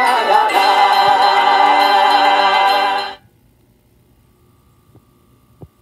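Trailer music ending on a held choral chord that cuts off sharply about three seconds in, followed by a faint hum and a single click near the end.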